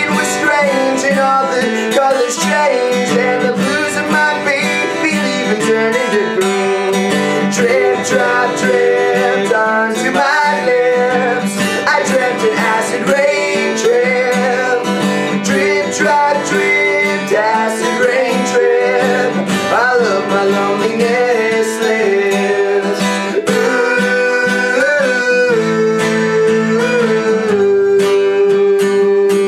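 Acoustic guitar strummed steadily, with a man's voice singing a melody over it without clear words.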